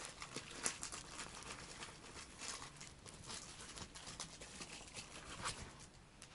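Bichon puppy chewing and mouthing a soft toy on a play mat: faint, irregular clicks, scratches and rustles, with a couple of sharper clicks.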